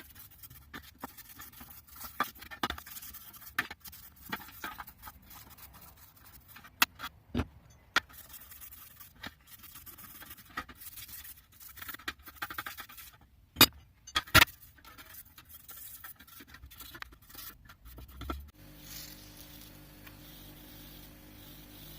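Hand scrubbing and wire-brushing of rusty adjustable spanner parts: scraping strokes with sharp clicks and clinks of metal, and two loud knocks a little under a second apart about two thirds of the way in. Near the end a small electric motor starts and hums steadily, with a hiss over it.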